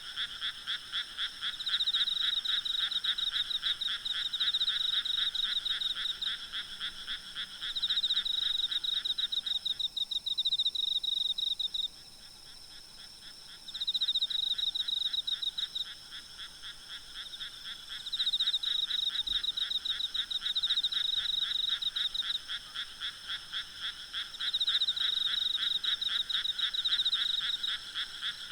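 Night chorus of frogs: rapid, pulsing croaks in bouts of a few seconds that pause briefly and start again. Beneath them runs a steady, high-pitched trilling of insects.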